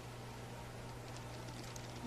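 Room tone: a steady low hum with a faint even hiss under it.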